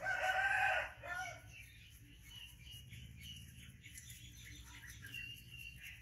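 Rooster crowing: one loud, held call just under a second long, followed by a shorter note, then faint high chirping.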